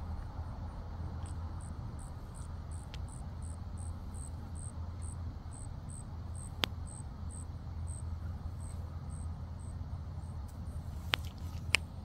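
Insect chirping in high, short, evenly spaced pulses, about three a second, over a low steady rumble. A few sharp clicks break in, two of them close together near the end.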